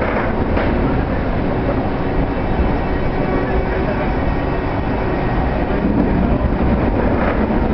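Passenger coaches of a departing train rolling past on the track, a steady rumble of wheels on rails.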